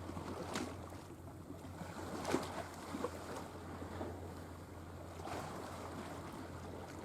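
Sea waves and wind sound effect: water washing and splashing in irregular surges over a steady rushing background.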